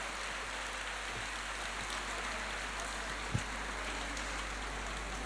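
Audience applauding steadily, with a single dull thump about three and a half seconds in.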